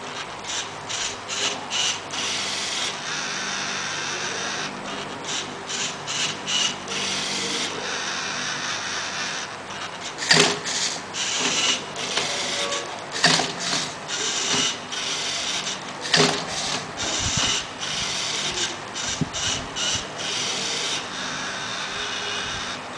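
LEGO Mindstorms NXT Rubik's Cube solving robot at work: its motors run in many short bursts while plastic parts scrape and rattle as the cube is gripped, turned and flipped, with a few sharp clacks around the middle.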